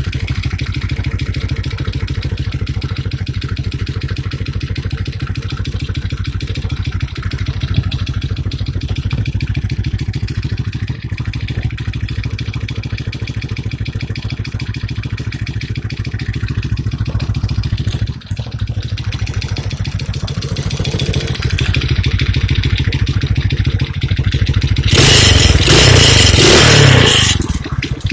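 Chinese ATV engine idling steadily. Near the end it is revved hard for about two seconds, then drops back to idle.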